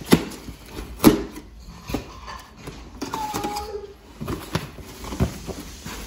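Cardboard shipping box being handled and its packing tape slit open with a blade: two sharp knocks right at the start and about a second in, then scattered lighter clicks and cardboard rustles.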